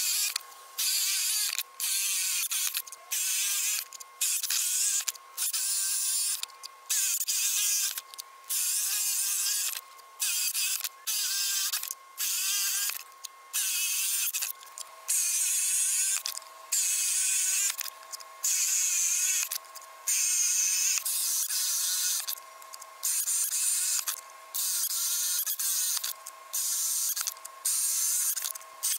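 Cordless drill boring holes in untreated wood with a Forstner bit, heard as a run of short drilling bursts, roughly one a second, each cut off abruptly where the sped-up footage jumps between holes.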